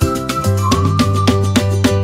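Upbeat theme music with a steady beat, a bass line and a high melody that slides in pitch.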